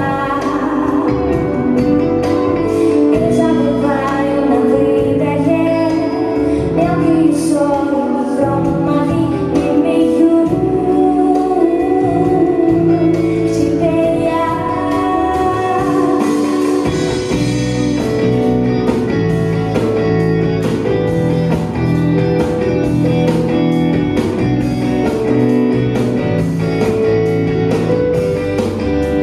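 Live band music: a woman singing over electric guitar, bass, keyboard and drums, with a steadier drum beat in the second half.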